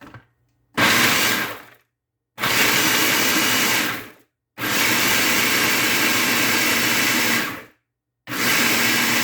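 Electric food processor run in four bursts, about a second, two seconds, three seconds and a second long, with short pauses between: pulse-chopping peeled garlic and pigeon eye chillies.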